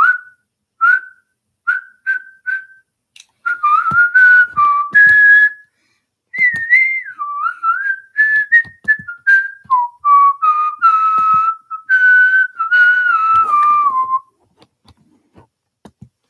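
A person whistling a tune: a few short notes, then a longer wandering melody that ends on a falling note. Faint clicks follow near the end.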